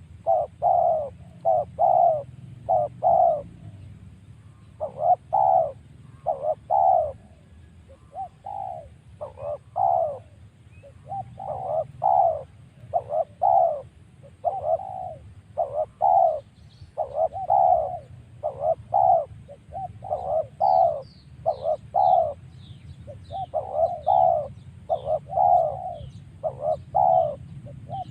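A dove cooing over and over in quick runs of a few notes each, a crisp, clear coo. From about halfway in, a small bird chirps high and fast behind it.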